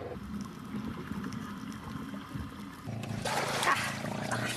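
Water splashing loudly as a free diver breaks the surface beside a wooden outrigger boat, starting about three seconds in, after a few seconds of low, indistinct background sound.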